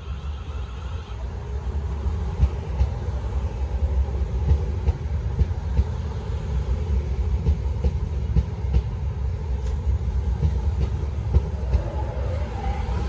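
South Western Railway Class 450 Desiro electric multiple unit running past along the platform: a steady low rumble of wheels on rail with scattered short clicks, and a brief rising whine near the end.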